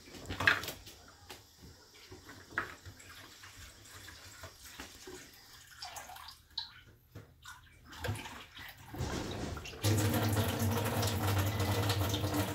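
Quiet clinks and knocks of kitchen utensils, then about ten seconds in a kitchen tap is turned on and water runs steadily.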